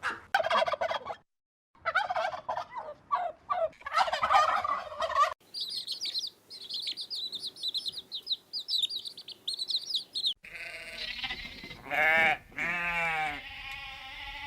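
A string of short animal-call clips cut together. For the first five seconds there are repeated poultry calls, broken by a brief silence at a cut. Then come about five seconds of rapid high-pitched chirping, and finally longer calls that fall in pitch, typical of livestock bleating.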